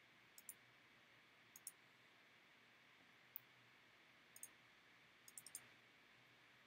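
Faint computer mouse clicks over near-silent room tone: a handful of quick double-clicks and a single click, the sound of opening folders in a file dialog.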